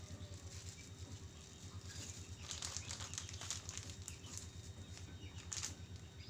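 Spices being ground by hand with a mortar and pestle: irregular scraping, rasping strokes that grow busier in the middle and again near the end.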